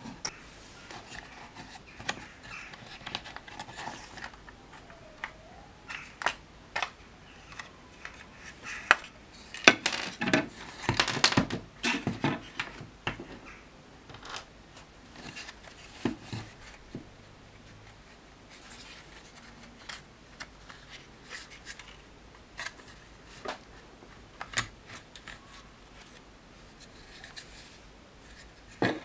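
Hands handling and pulling apart the plastic cyclone parts of a Dyson DC62 vacuum: scattered clicks, knocks and scraping of plastic, with a dense run of scraping and knocks about ten seconds in.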